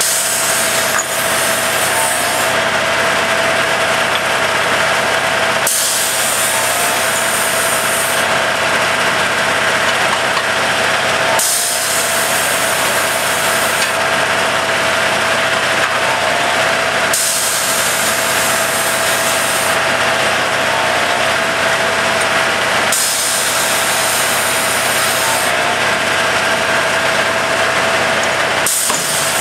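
Track tamper machine's diesel engine and hydraulics running steadily at a stand, with a steady whine. A hiss swells and drops about every six seconds.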